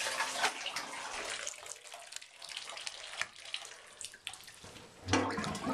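Water running from a bathtub tap into the tub, with scattered small clicks and a louder thump about five seconds in.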